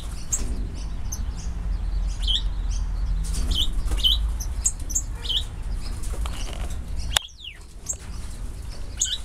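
Small aviary birds chirping, a scatter of short, quick calls over a steady low rumble. A single sharp click sounds about seven seconds in.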